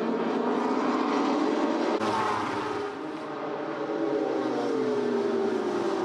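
Several World Superbike racing motorcycles at high revs as a pack passes, their engine notes sliding down in pitch as they go by. The sound changes abruptly about two seconds in, when a different group of bikes is heard.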